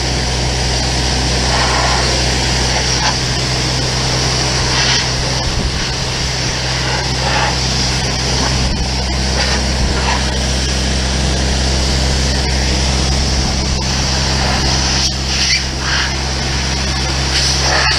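Compressed air hissing from an air-line blow gun in repeated blasts, used to blow dust and hay out of a baler, over the steady low drone of a Hydrovane air compressor running.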